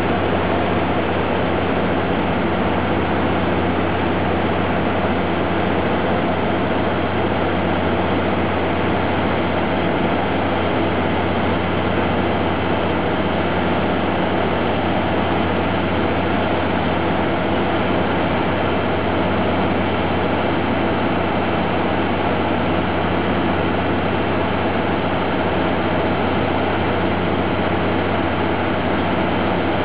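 DR2800-series diesel multiple unit standing at the platform with its diesel engines idling, a steady, even hum.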